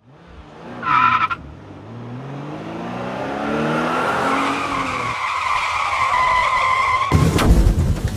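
Car engine revving up in a rising sweep, with tyres squealing: a short squeal about a second in, then a long steady squeal that stops at about seven seconds. Loud music with a heavy beat starts at that point.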